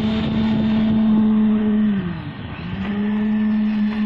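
Concrete poker vibrator's motor running with a steady hum. About halfway through, its pitch sags sharply and then climbs back up within a second.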